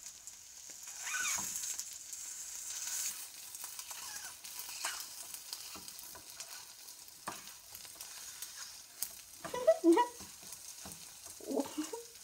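An egg frying in a nonstick pan with a light sizzle, while a slotted metal spatula presses and scrapes at it, clicking against the pan. Two brief louder sounds come near the end.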